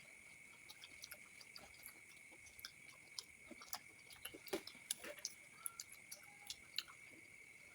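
Faint eating sounds: chewing with scattered small clicks and taps, busier from about four to seven seconds in, over a steady high-pitched background tone.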